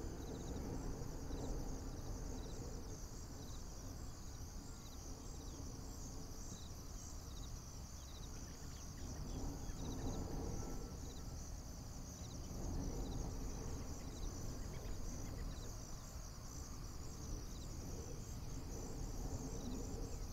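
Crickets chirring in a steady high trill, with short chirps repeating less than a second apart, over a low wind rumble that swells now and then.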